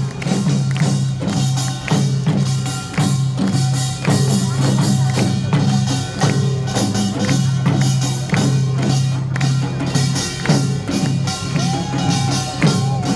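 Loud music with a steady low hum and rapid, repeated percussion strikes.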